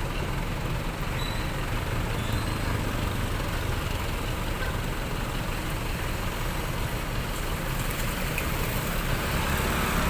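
Dump truck's engine running steadily with a low rumble.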